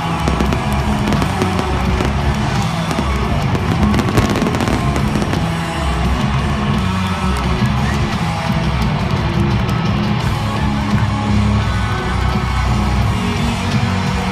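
Loud live country-rock band music through a stadium PA with a heavy bass beat, and fireworks crackling and popping over it, most densely in the first few seconds.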